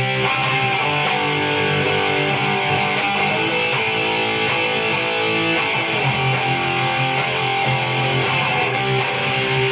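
Guitar played by a learner about a year into practising, a steady stream of picked notes over held tones.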